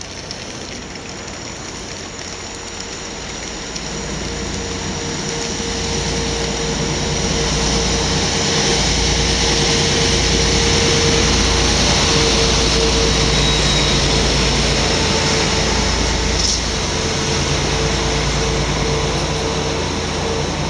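An SU45 diesel-electric locomotive hauling a double-deck passenger train approaches and runs past close by. The engine rumble and running noise grow steadily louder over the first several seconds, then hold as the locomotive and coaches go by, with a steady whine over the top and one sharp click near the end.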